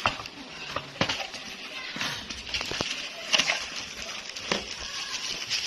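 Rustling of packaging being handled and opened, with scattered irregular clicks and knocks.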